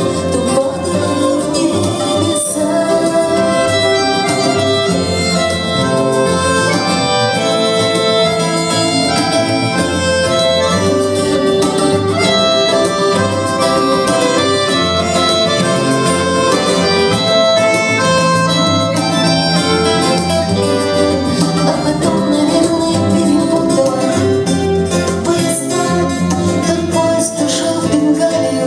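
Live instrumental passage of a folk-rock song: a bayan (button accordion) and a violin playing together over strummed acoustic guitars.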